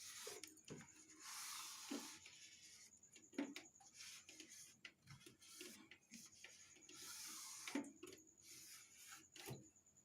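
Faint rubbing of a soft cloth wiping the plastic interior of a fridge, in strokes of about a second each, with a few light knocks against the surfaces.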